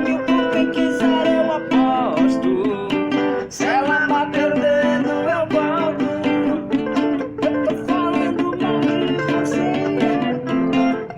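Acoustic guitar playing a song, with a sung melody over it.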